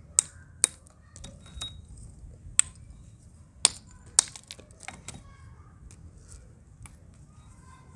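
A metal rod strikes chunks of baked red clay held on a flat stone, cracking them into crumbs. There are five or so sharp knocks at uneven intervals, with lighter crunches and crumbling between them.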